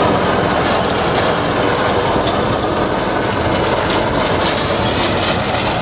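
Tractor-mounted rotavator-ridger working soil: a steady, dense mechanical clatter from the blade rotor and its gearbox churning the ground as the tractor pulls it along.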